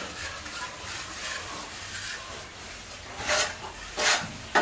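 A plastering trowel scraping wet cement plaster on a wall: faint rubbing at first, then two louder scraping strokes about three and four seconds in, and another right at the end.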